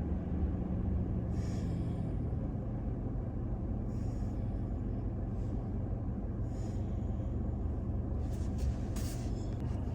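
Toyota Tacoma pickup's engine and drivetrain giving a steady low drone as the truck rolls slowly along a dirt trail, with a few faint brief hisses.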